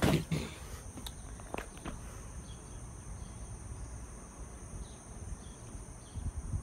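Insects chirring in a steady, high-pitched drone. There are a few knocks of the phone being handled in the first two seconds.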